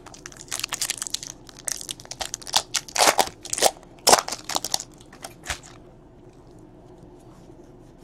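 Wrapper of a Donruss baseball card pack crinkling and tearing as it is ripped open by hand: a dense run of sharp crackles lasting about five seconds, loudest just past the middle, then stopping.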